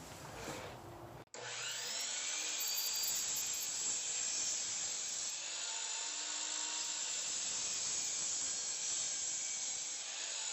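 A power tool running steadily on wood, a loud even hiss that starts abruptly about a second in.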